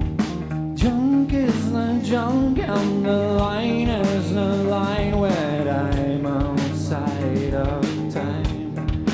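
Heavy-funk rock band playing live: steady strikes on a Tama drum kit, electric guitar and bass, with a male voice singing over the band in gliding, bending notes during the first half.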